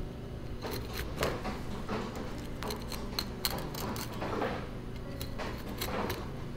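Long sashimi knife cutting along the backbone of a largescale blackfish, the blade passing over the bones in clusters of small clicks and crackles about one, three and six seconds in.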